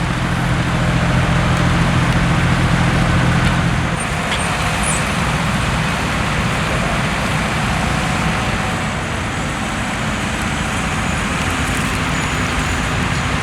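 Tractor engine running steadily, a low hum that is strongest for the first four seconds, after which a broader rumble continues.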